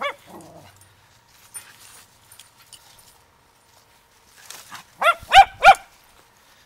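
Small poodle barking: one short yip at the very start, then three quick, loud barks about five seconds in.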